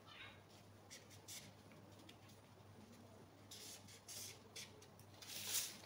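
Felt-tip marker drawing lines along a ruler on paper: a string of faint, short scratchy strokes, the loudest near the end.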